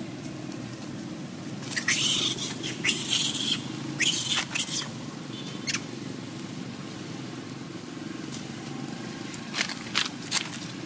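Baby long-tailed macaque giving shrill squeals in short bursts, several about two to five seconds in and three more near the end, over a steady low hum.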